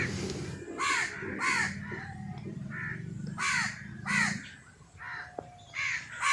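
Crows cawing repeatedly: a string of short, harsh caws, roughly one or two a second, some overlapping, over a low steady rumble that fades out about four seconds in.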